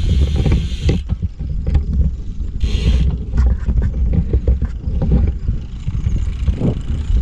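Wind buffeting the microphone of a bike-mounted action camera on a moving road bike, a steady gusting low rumble, with the tyres rumbling and knocking over the textured concrete road.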